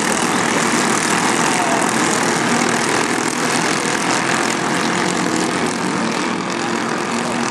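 Racing kart engine running at speed, loud and steady, under a dense rushing noise, its pitch shifting slightly as the kart goes round the track.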